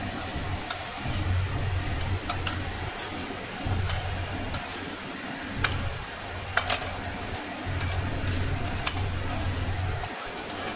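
A perforated metal spoon stirring poha in an aluminium kadai, scraping the pan and striking its rim with scattered sharp clicks. A low hum comes and goes underneath.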